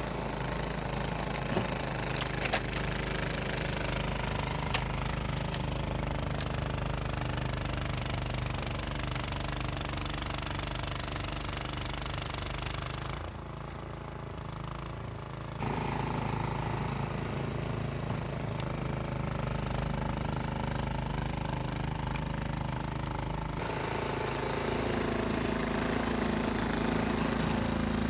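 Toro Power Max 828 two-stage snowblower running under load, its single-cylinder engine steady while the auger and impeller churn through heavy, wet snow and throw it. There are a few sharp ticks in the first few seconds, and the throwing noise drops for a couple of seconds about halfway through.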